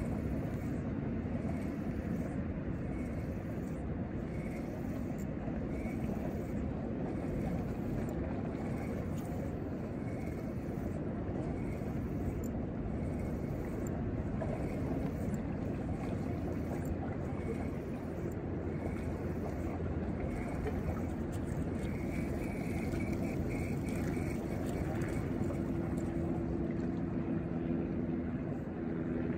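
Steady wind rumble on the microphone over water noise. Near the end a motorboat engine's steady hum comes in.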